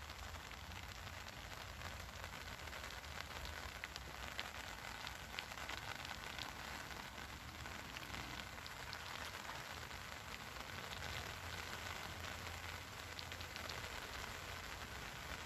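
Steady rain falling on the surface of a lake, an even hiss with scattered ticks of single drops.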